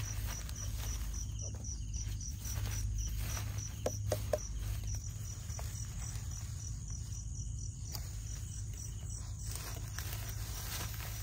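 An insect chirping steadily in short, evenly spaced high pulses, over a steady low rumble, with a few short knocks about four seconds in.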